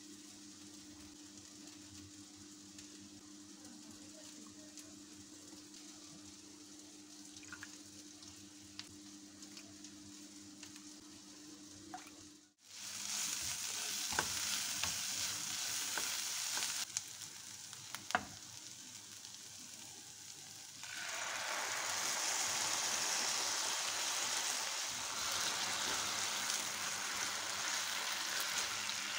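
Shredded vegetables sizzling as they are stir-fried in a non-stick pan, with a spatula knocking and scraping against the pan a few times. The sizzle gets louder about two-thirds of the way through. Before it starts there is only a quiet, steady low hum with a few faint clicks.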